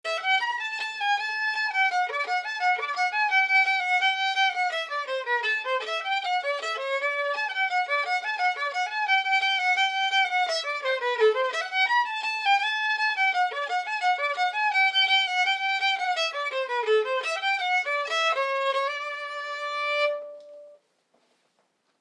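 Solo fiddle playing a quick-moving tune, ending on a long held note near the end before stopping.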